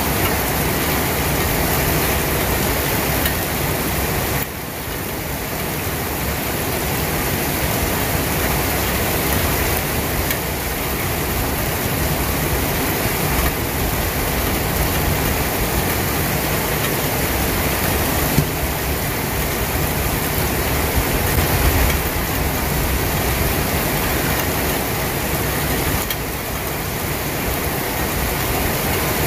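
Steady rain falling, a dense even hiss with a low rumble underneath; the level dips slightly about four and a half seconds in.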